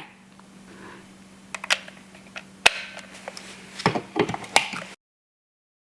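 Sharp plastic clicks and knocks from handling the Levoit LVAC-200 cordless vacuum's removable battery pack while it is detached and plugged in to charge. There are a few single clicks, then a quick cluster of clicks near the end, and then the sound cuts off abruptly.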